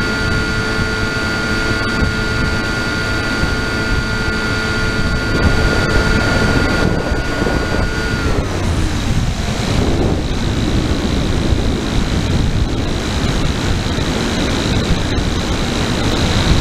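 Onboard sound of an FPV model aircraft: the motor and propeller whine at a steady pitch, and the pitch drops about halfway through as the power comes off. Wind rushes over the onboard microphone throughout.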